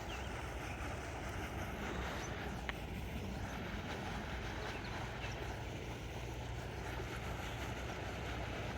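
Steady outdoor rumble and hiss, like wind on the microphone, with one small sharp click about three seconds in.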